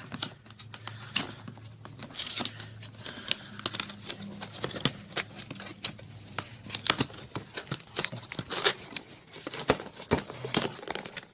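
Webcam packaging being handled and opened: cardboard and plastic crinkling, tearing and rustling, with many irregular sharp clicks and crackles.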